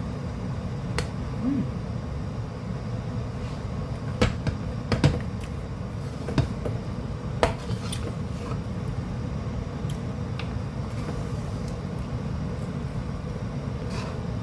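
Several sharp knocks and clicks of a utensil against a cooking pan as the sticky calamay mixture is worked. They come irregularly, most of them in the middle of the stretch, over a steady low rumble.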